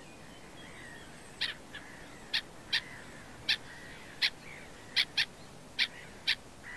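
Short, sharp bird calls, about ten of them at irregular intervals, over faint background birdsong.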